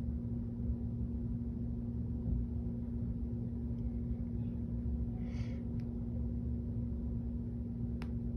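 Steady low hum with one constant tone over a low rumble. A brief soft scratch comes about five seconds in and a small click near the end.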